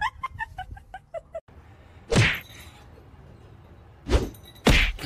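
A quick run of small clicks and chirps, then three loud sharp thuds: one about two seconds in and two more half a second apart near the end.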